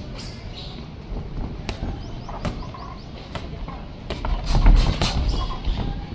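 Boxing gloves landing punches during a sparring round: scattered sharp smacks, then a louder flurry of strikes over a low rumble about four and a half seconds in.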